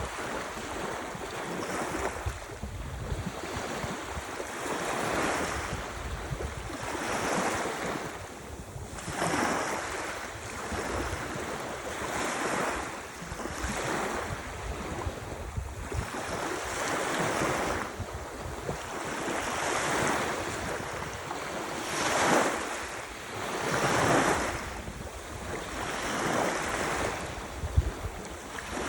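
Ocean waves washing ashore, surging and fading about every two seconds, with wind buffeting the microphone in a low rumble underneath.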